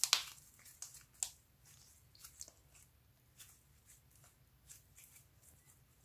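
Glossy purple slime being squeezed, folded and stretched by hand, giving sticky clicks, pops and crackles. A sharp pop right at the start is the loudest, and the crackles grow sparser and fainter toward the end.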